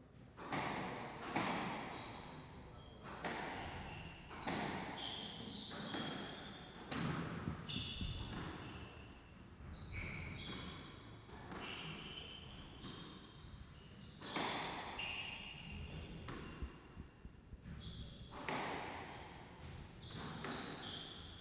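A squash rally: the ball is struck by rackets and slams off the walls again and again, each hit sharp and echoing around the enclosed court, roughly one to two hits a second, with short high squeaks of court shoes on the hardwood floor between strikes.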